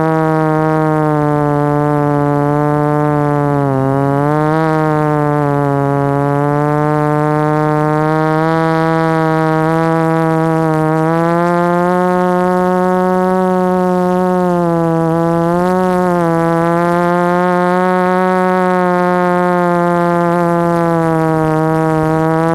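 Electric motors and propellers of an FPV model aircraft, heard from the onboard camera, giving a steady whine whose pitch follows the throttle. The pitch dips briefly about four seconds in and steps up about halfway through.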